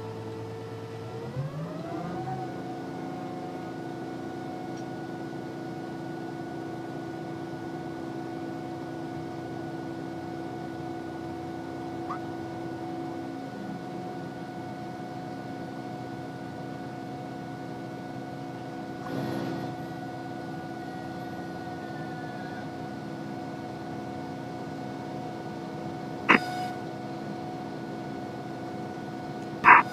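Cessna P210R's engine and propeller heard from inside the cockpit, sped up to double speed. The drone rises in pitch about two seconds in as power comes up for the takeoff roll, then holds steady through lift-off and the climb, with a sharp click near the end.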